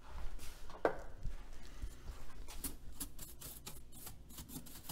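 Scattered clicks and light knocks as the Nivico 4TR-990 console receiver is switched on and its cleaned controls are worked, with a short falling tone about a second in.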